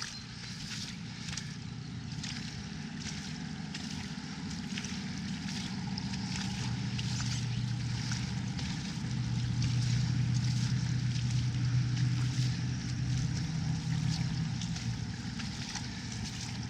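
Footsteps on a muddy, waterlogged path at a steady walking pace, with a distant engine's steady low hum that swells through the middle and fades near the end.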